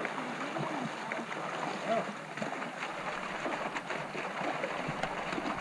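River water sloshing and splashing around people wading and bathing elephants, with faint voices in the background.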